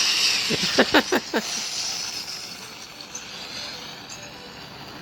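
Cartoon explosion sound effect: a sudden burst of noise, a few sharp crackles about a second in, then a hiss that fades away.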